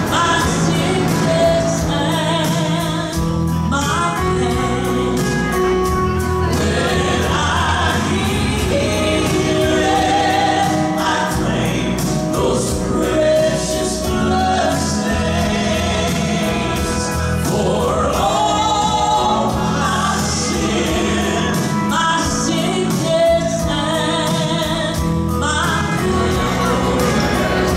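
Gospel music: a vocal group singing in harmony over instrumental backing, continuous and steady in level.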